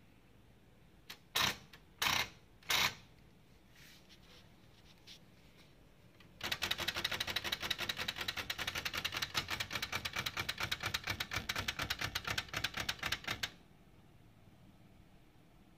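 Smith-Corona Galaxie Deluxe manual portable typewriter: three single hard keystrokes, then a fast, even run of typing lasting about seven seconds, the typebars striking several times a second.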